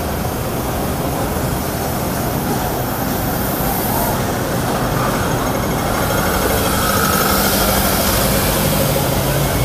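Busy city street ambience: a steady wash of traffic and vehicle engines with crowd noise. A low engine hum becomes more prominent in the second half.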